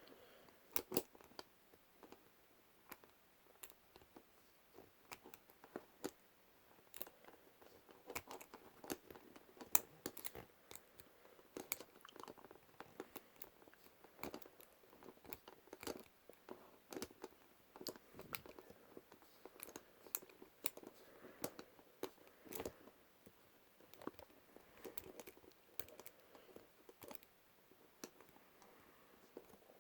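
Faint, irregular small metallic clicks and scrapes of a lock pick and tension wrench working the pins inside a padlock during single pin picking.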